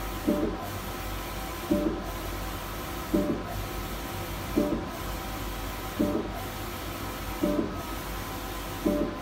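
A 1.6 m Etech large-format inkjet printer printing, with the print-head carriage shuttling back and forth. A steady hum of its motors and dryer fans runs under a short, louder mechanical burst that repeats evenly about every second and a half.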